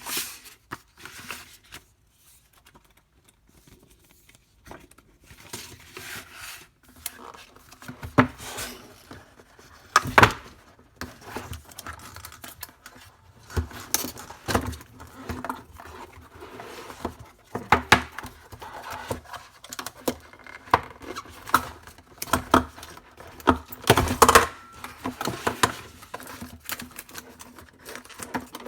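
Product packaging being handled during an unboxing: irregular clicks, taps and knocks of parts and cardboard, with plastic and paper rustling.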